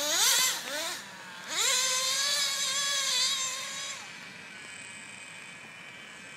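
Small glow-fuel (nitro) engines of Traxxas Jato RC trucks revving: a couple of quick rising blips, then one engine winds up into a high steady whine for about two seconds and fades away about four seconds in.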